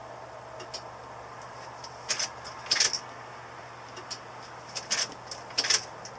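Ignition key of a 1993 Ford E250 van turned to the run position and back several times without cranking, giving short clicks and jingles of the key and key ring over a faint steady hum. No fuel pump whirr starts up, which fits the pump not getting power or not working.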